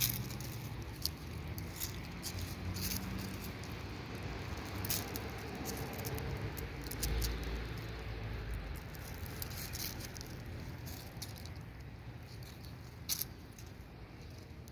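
Dry leaves and gravel crackling in scattered small clicks and rustles as a kitten shifts about under a petting hand, over a low steady background rumble; one sharper click comes near the end.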